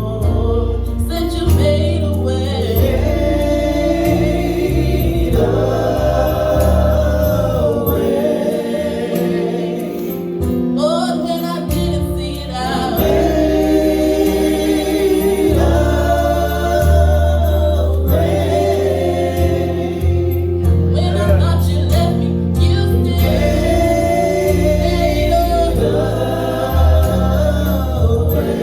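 Gospel music: a choir singing over instrumental accompaniment with a deep bass line.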